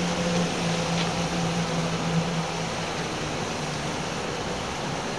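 Steady rush of a fast outgoing tidal current, with the low steady drone of a small boat's outboard motor running against the current, dipping for a moment midway.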